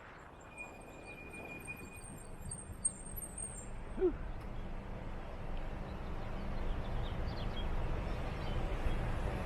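Wind buffeting the camera microphone while riding an electric bike, rising steadily louder as the bike picks up speed. A few thin high tones sound in the first few seconds, and there is a single short click about four seconds in.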